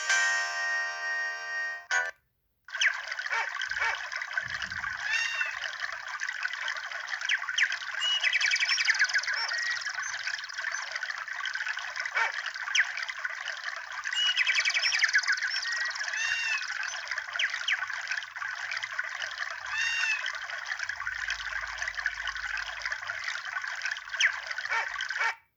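A Samsung SGH-X800 nature-sound ringtone of trickling water with short chirps now and then, thin-sounding with nothing below about 500 Hz. It starts about three seconds in, after the previous ringtone's melody stops and a short gap, and it cuts off just before the end.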